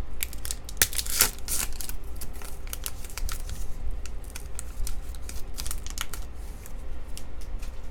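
A foil trading-card pack wrapper crinkling and being torn open, with the cards inside handled: a rapid, irregular run of small crackles and clicks.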